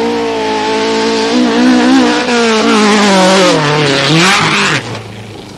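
A Nissan rally car's engine running hard on dirt. It holds a steady high pitch, drops about three and a half seconds in, picks up again briefly and cuts off near the end. A hiss of dirt and gravel thrown up by the tyres runs over the engine note.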